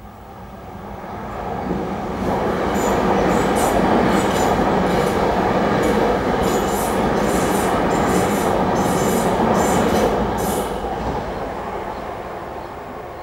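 South Western Railway third-rail electric multiple unit passing over a level crossing. It grows louder over the first couple of seconds, stays loud for about eight seconds with a run of sharp clicks from the wheels over the rail joints, then fades as it moves away.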